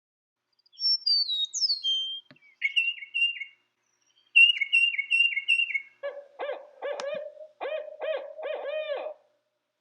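Recorded songs of several bird species in sequence. First come a few high, clear whistled notes gliding downward, then a short phrase repeated several times, and from about six seconds in a series of lower calls with many overtones.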